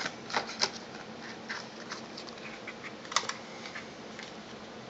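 Light clicks and rustling of paper and cardboard packaging being handled and tucked back into its packet, busiest in the first second, with one sharper click about three seconds in.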